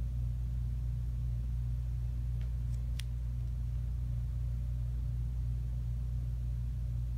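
Steady low hum of room tone, with a single faint click about three seconds in.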